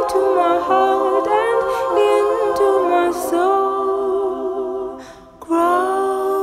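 Wordless a cappella singing: voices humming held notes in harmony, with a short break about five seconds in.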